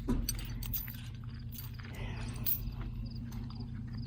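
A vehicle engine idling steadily, with scattered light clicks and knocks over it.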